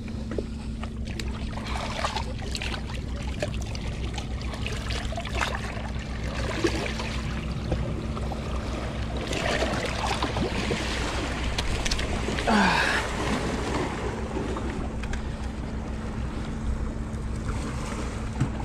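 Small waves washing against rocks, with wind on the microphone and a steady low hum underneath. About ten seconds in there is a brief splashing as a fish is grabbed at the water's edge.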